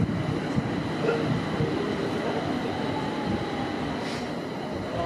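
JR East E721-series electric train pulling out and rolling away, with a steady wheel-on-rail rumble and knocks over the rail joints. A faint motor whine rises in pitch about three seconds in.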